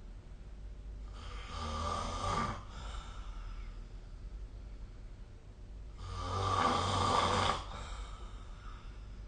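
A person snoring in their sleep: two snores about four and a half seconds apart, the second longer and louder, over a low steady background hum.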